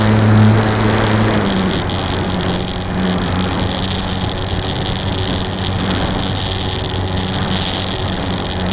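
HobbyZone Super Cub RC plane's electric motor and propeller running in flight, a steady hum with wind hiss, heard from a camera mounted on the plane. About a second and a half in, the hum drops slightly in pitch and loudness, then holds steady.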